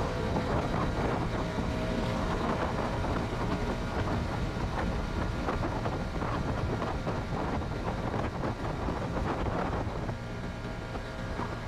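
Honda CB150R's single-cylinder engine running at road speed, under heavy wind noise on the microphone. It eases off a little about ten seconds in.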